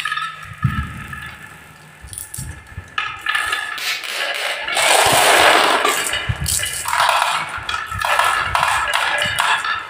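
Glass marbles rolling and clattering down a HABA wooden double-slope marble run, clicking over the wavy wooden dips and dropping into a plastic toy dump truck's bed. The rattle is densest about halfway through, as many marbles roll at once.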